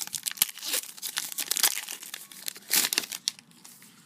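Plastic card packaging crinkling and rustling as it is handled, a dense run of irregular crackles that is loudest near the end and then stops.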